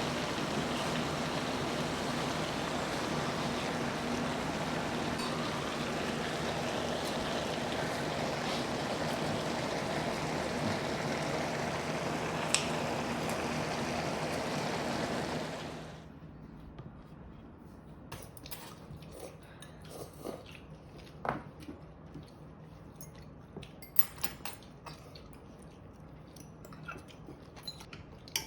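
Steady kitchen hiss over a low hum, like running water or cooking under a fan, that cuts off sharply about sixteen seconds in. After it come scattered light clinks and taps of dishes and utensils.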